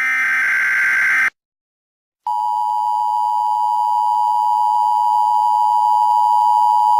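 Emergency Alert System alert: a SAME header data burst, a harsh buzzing screech lasting a little over a second. After about a second of silence the steady two-tone EAS attention signal starts and holds.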